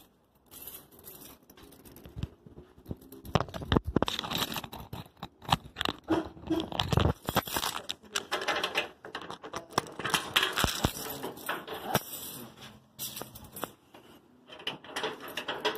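Handling noise from a handheld phone: irregular rustling, rubbing and clicking as it is moved about and brushes against clothing.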